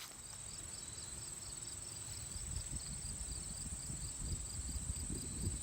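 Field insects trilling steadily at a high pitch, with a softer chirp repeating about three times a second, over a low rumble.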